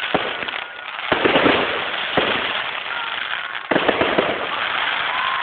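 Fireworks going off: a dense crackling hiss, with sharp pops about a second in, near two seconds and again near four seconds in.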